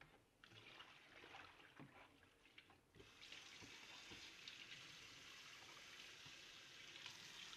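Faint splashing and sloshing as soapy water is emptied from a bowl into the kitchen sink. About three seconds in, the faucet comes on and runs steadily over the bowl as it is rinsed.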